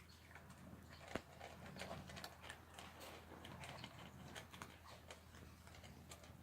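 Faint, scattered clicks of an animal chewing and eating its food, with one sharper click about a second in.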